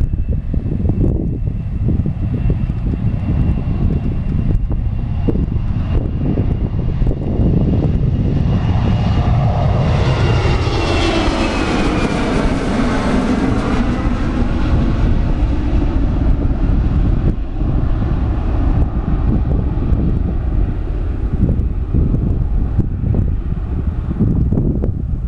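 Embraer 190 jet's twin GE CF34-10E turbofans at takeoff power as it rolls, lifts off and passes overhead. A high whine slowly drops in pitch while the engine noise swells to a peak near the middle and then fades as it climbs away. Wind buffets the microphone throughout.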